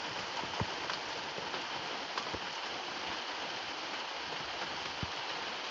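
Steady rain falling, with a few sharper single drops standing out now and then.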